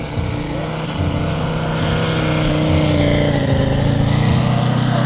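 Five-cylinder Valach VM-250 radial engine of a half-scale model Bücker Jungmeister biplane running at flying power on a low pass, growing louder over the first few seconds and then holding steady.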